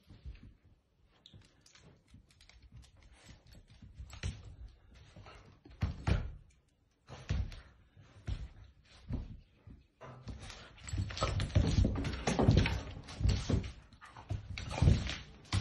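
Dogs playing on a wooden floor: short thumps, knocks and scuffles, sparse at first, then busier and louder from about ten seconds in.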